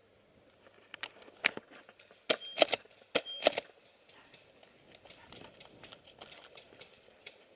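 Footsteps crunching and crackling through dry leaf litter and twigs, with a cluster of sharp clicks and knocks between about two and three and a half seconds in.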